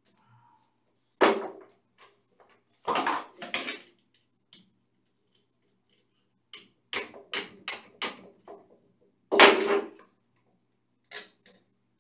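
Hammer tapping on metal: about a dozen sharp metallic clanks in irregular clusters, the loudest about two thirds of the way through.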